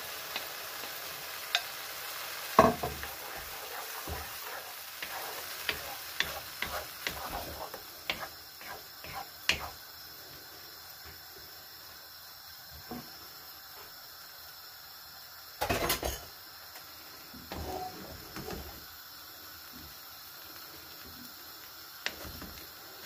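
Mushrooms, onion and eggs sizzling in a nonstick frying pan while a wooden spatula scrapes and knocks against the pan, with a loud knock a couple of seconds in and a longer clatter about two-thirds through. The sizzling quietens after about eight seconds.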